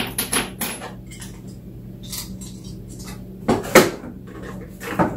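A small cardboard box being handled and its flaps folded, with small parts clattering: a few scattered knocks and rustles, the loudest two close together about three and a half seconds in.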